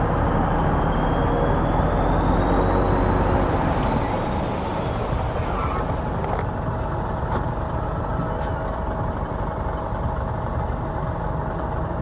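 Komatsu D65EX bulldozer's diesel engine running hard, louder over the first four seconds with a faint rising whine, then settling to a steadier drone with a few sharp clanks.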